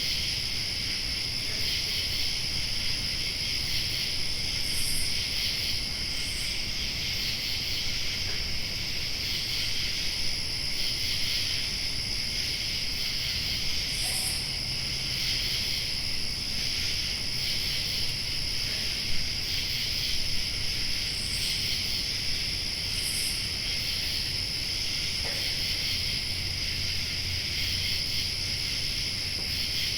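Summer night insect chorus: crickets trilling continuously in a dense, steady wash, with a thinner, higher insect tone above that stops and restarts and a few short chirps. A low, steady rumble runs underneath.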